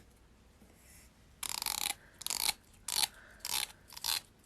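The teeth of a comb being scratched along, five short rasping strokes about half a second apart, starting about a second and a half in.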